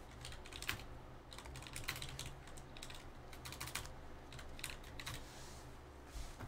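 Typing on a computer keyboard: faint, irregular key clicks coming in small clusters.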